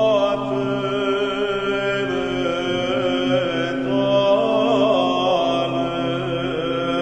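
Orthodox church chant used as background music: voices singing a slow, bending melody over a steady held low drone.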